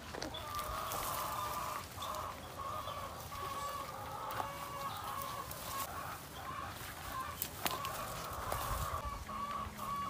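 Chickens clucking, a steady run of short repeated calls, with a few faint knocks.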